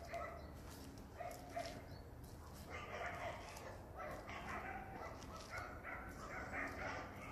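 Dogs barking and yipping, off and on, in short pitched calls.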